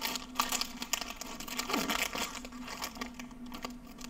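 Plastic snack wrapper crinkling and tearing in irregular crackles as a package of butter waffle cookies is opened by hand.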